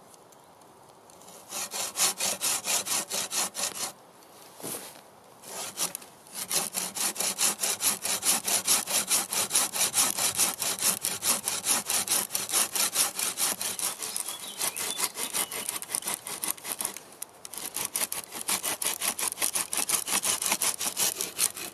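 Hand sawing through a thick wooden branch, a folding pruning saw and then a bow saw, cutting a bevel into the branch end: quick, steady back-and-forth strokes. The strokes pause for about two seconds around four seconds in and break off briefly near the seventeen-second mark.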